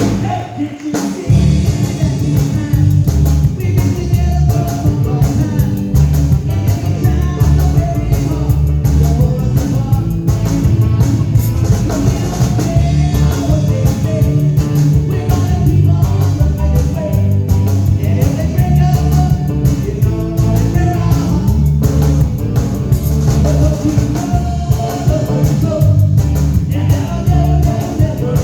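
A 1960s-style rock and roll song with singing, electric guitar, bass and drums, played at full volume with a steady beat. It starts about a second in, right after a held chord.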